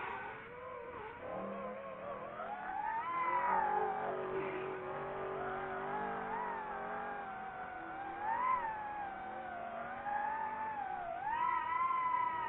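FPV racing drone's motors whining, the pitch sliding up and down as the throttle changes. A lower, steadier engine note runs beneath it through the first half.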